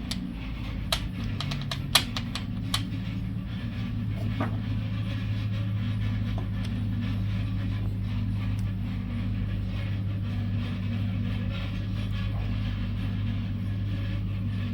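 Heat gun blowing steadily with a low hum, heating the flashlight's threaded parts so they can be unscrewed. A few light handling clicks in the first three seconds.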